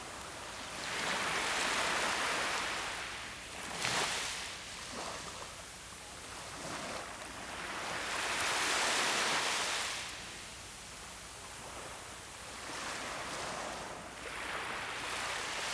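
Small waves washing up over a sandy beach, each wash swelling and fading over a few seconds, with a sharper splash of surf about four seconds in.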